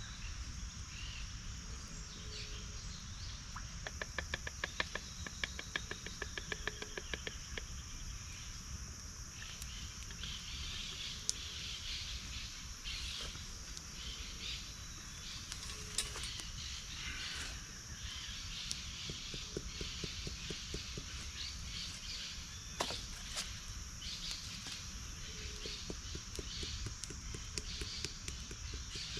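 Outdoor night-to-dawn ambience by a creek: a steady high-pitched insect drone, with scattered chirps and a rapid clicking trill for a few seconds near the start, over a low steady rumble.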